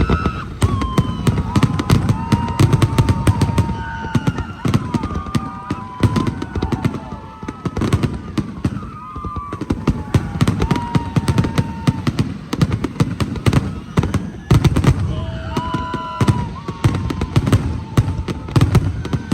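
Fireworks display going off: low booms and rapid, dense crackling bangs.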